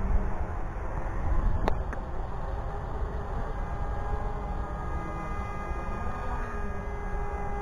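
Wind rumbling on the microphone, with a brief click about a second and a half in; from about three seconds in, the steady electric whine of a drone's motor and propeller comes in and grows clearer toward the end.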